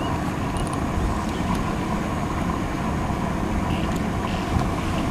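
Steady low rumble of wind buffeting the microphone, with a faint steady hum underneath.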